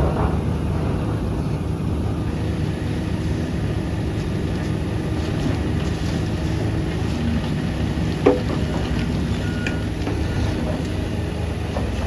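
Heavy diesel machinery engine running steadily with a low rumble, with one sharp metallic knock about eight seconds in.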